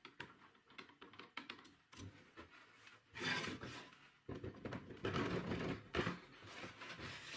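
Handling noise as the metal parts of a homemade angle-grinder router base are fitted together. Scattered light clicks and knocks come first, then from about three seconds in longer stretches of scraping and sliding as the clamp body is fitted onto the steel guide posts.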